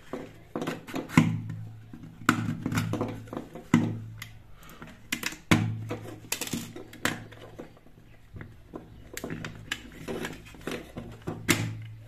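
Plastic torch casing being unscrewed and prised open by hand: a string of irregular sharp clicks, taps and knocks of plastic and a small screw.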